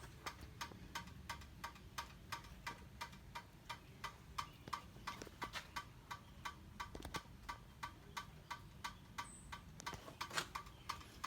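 Steady, rapid ticking, about three or four sharp clicks a second, over a faint low hum.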